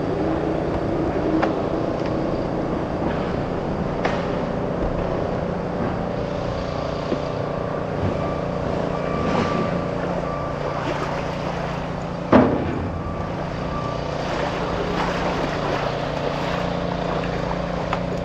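Kawasaki SX-R 1500 stand-up jet ski's four-cylinder four-stroke engine running steadily at idle/low speed on the water, with one sharp knock about twelve seconds in.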